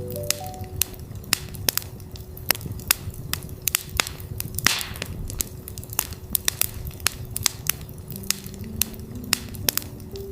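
Campfire crackling with many sharp pops and a short hiss about five seconds in, over a steady 369 Hz tone. Soft rising notes sound near the start and again near the end.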